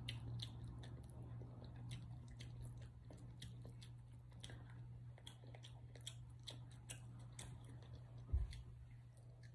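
Faint, close-miked chewing and small mouth clicks from eating chicken wings, over a steady low hum. A dull low thump comes near the end.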